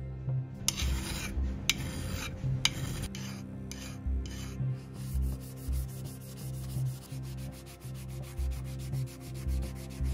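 Sandpaper rubbed back and forth by hand over a cast bronze knife blade. Scraping strokes come about two a second at first, then become quick and even from about halfway through.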